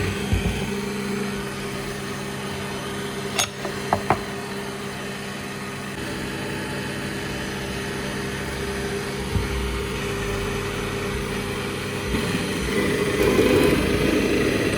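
Electric workshop power tool motor running steadily, with three sharp clicks about three and a half to four seconds in. It grows louder and rougher near the end, as if it is taking up work.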